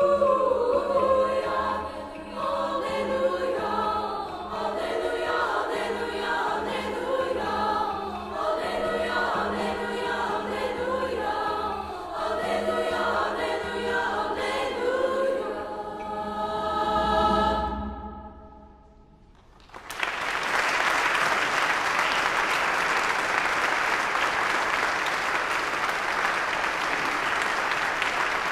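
Women's chorus singing the closing bars of a song, ending about 17 seconds in on a final chord with a low boom beneath it. A short hush follows, then the audience applauds steadily.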